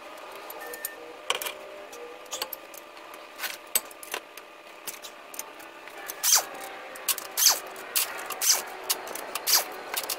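Metal clicks and clinks from hand tools and axle parts being handled, with several sharper knocks in the second half.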